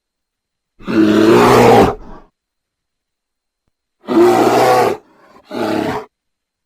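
Bear growling three times: a long, deep growl about a second in, then after a pause a shorter growl around four seconds in, followed closely by a brief third one.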